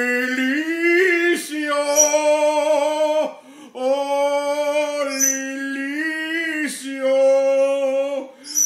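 A man singing in a mock-operatic voice: long held notes with a slight vibrato, stepping between a few pitches, with short breaks for breath about three seconds in and near the end.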